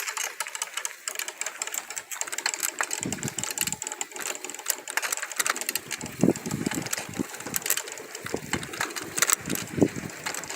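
Bicycle spokes rapidly and irregularly clicking against the cut flap of a plastic-bottle 'exhaust' as the bike rides, a light clatter rather than the loud buzz it is built for: the flap is not catching the spokes properly.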